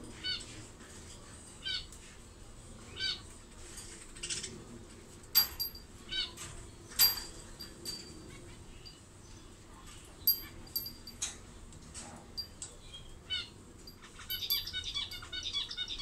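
Pet budgerigars calling: short chirps every second or two with a few sharp, loud high chips among them, then a burst of fast chattering warble near the end.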